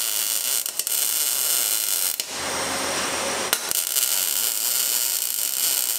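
Wire-feed welder arc crackling steadily as a hanger is welded onto a stainless exhaust muffler. The crackle breaks off a little past two seconds in and starts again about a second later.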